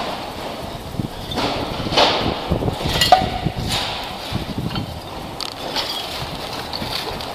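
Footsteps and gear knocking against the body-worn microphone, an irregular run of low thuds with a few sharper clicks in the first half.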